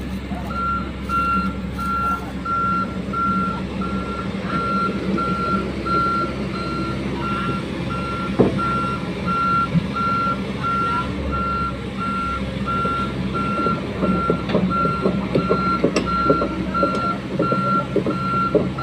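Komatsu excavator's travel alarm beeping steadily, about two beeps a second, over the steady hum of its diesel engine as it moves on its tracks. Clanks from the machine become more frequent in the last few seconds.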